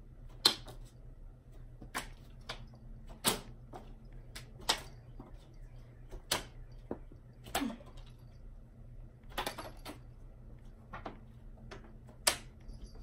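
Playing cards being thrown one after another: about a dozen sharp snaps and slaps, roughly one a second, as the cards are flicked off the fingers and hit the wall and furniture.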